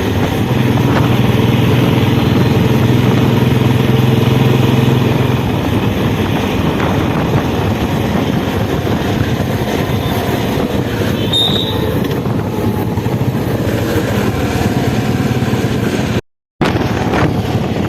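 Royal Enfield Bullet motorcycle's single-cylinder engine running loudly, with a steady low hum for the first five seconds or so, then a rougher, noisier sound. The audio cuts out for a fraction of a second near the end.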